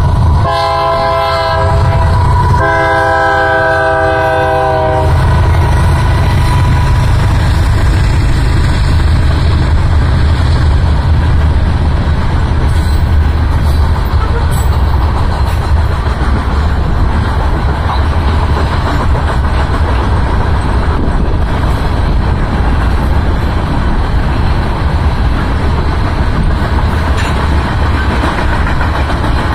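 BNSF freight train's multi-note air horn sounds a short blast and then a longer one near the start as it approaches the grade crossing. The train then passes with a steady, heavy rumble of steel wheels on the rails as the covered hopper cars roll by.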